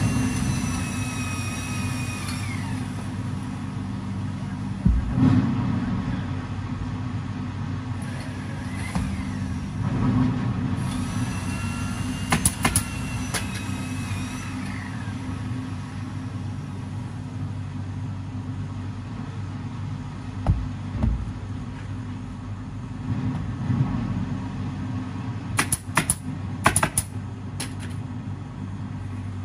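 Steady low machinery hum, with a faint high whine near the start and again about eleven seconds in. A few sharp clicks come about halfway through, and a quick cluster of them near the end.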